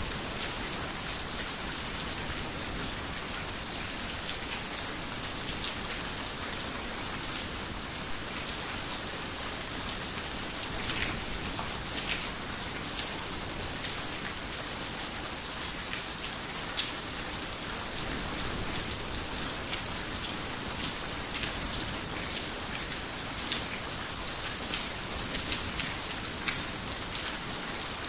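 Heavy rain falling steadily on a garden house, a dense even hiss with frequent sharp drop ticks scattered through it.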